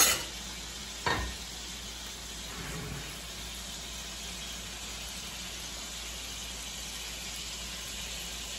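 Bison patties sizzling steadily in a covered skillet, with two sharp knocks in the first second or so.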